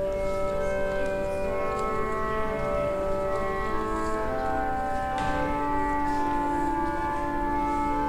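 Organ playing slow music in long held chords, the notes shifting every second or two.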